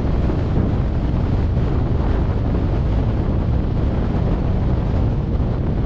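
Wind blasting across a roof-mounted GoPro's microphone on a moving vehicle: a steady rushing with a heavy low rumble.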